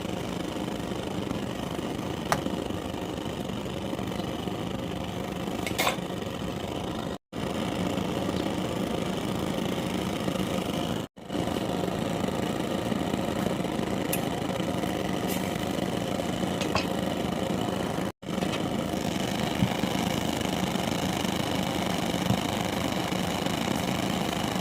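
A motor running steadily with an even hum, cut off by short silent gaps three times, with a few faint ticks over it.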